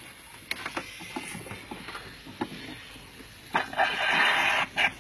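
Light clicks and knocks of hand work in a car's engine bay, then a hiss lasting about a second near the end as water is forced through the pump hose to flush out the old brake fluid.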